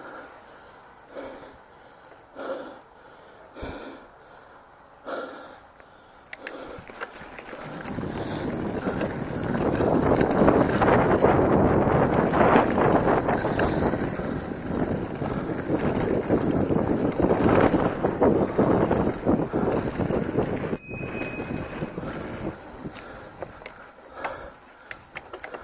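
Mountain bike riding along dirt singletrack. At first there are only soft rhythmic puffs about once a second. From about eight seconds in, a loud steady rush of tyre and trail noise, thick with rattles and clicks, builds and holds until near the end.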